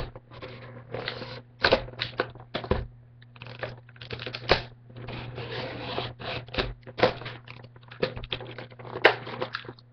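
Cardboard box and plastic packaging being opened and handled: irregular rustling and scratching broken by sharp clicks and snaps, over a steady low electrical hum.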